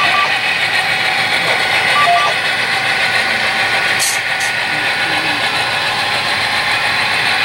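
Steady engine drone from an HO-scale model diesel locomotive's sound decoder, run through its small onboard speaker, with two brief hisses about four seconds in.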